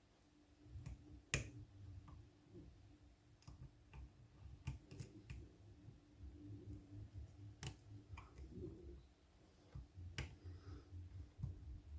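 Faint, scattered small clicks and scrapes of a lock pick and tension wrench working the pin stack of a Keden Guard 30 mm brass padlock while it is being single-pin picked, with a few sharper clicks about a second in, near eight seconds and near ten seconds.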